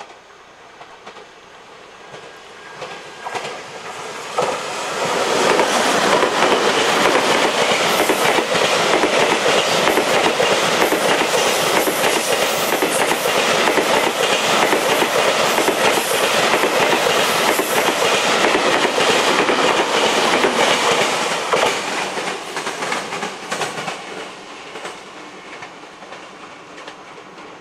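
JR Freight M250 series electric freight train running through a station at speed. It grows louder as it approaches, then for about fifteen seconds there is a steady rush of wheels on rail with rapid clicking, and it fades as the last cars go away.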